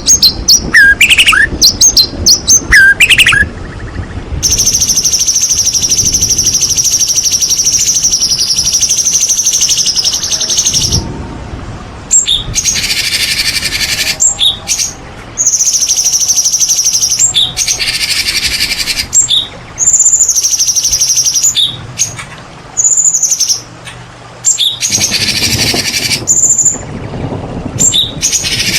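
White-rumped shama singing: a few clear, sliding whistled notes at the start, then long, harsh, buzzing trills broken by short pauses.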